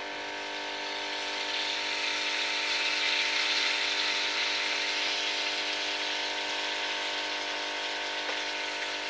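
Spiced potato slices frying in oil in a steel pan, a steady sizzle that grows slightly louder in the first few seconds, over a steady mechanical hum.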